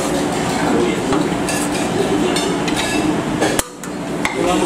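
A steel serving spoon scraping and knocking against the rim and inside of a large metal biryani pot as rice is scooped out, with several sharp metallic clinks, the sharpest about three and a half seconds in and near the end, over a steady background din.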